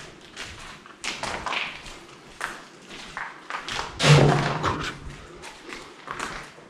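Footsteps on a debris-strewn floor: a run of short taps and scuffs, with one heavier thud about four seconds in.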